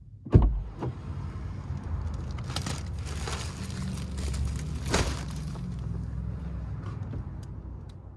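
A car door opening with a thump, then a plastic shopping bag rustling and crinkling as it is loaded onto the seat, over a low steady rumble coming in through the open door.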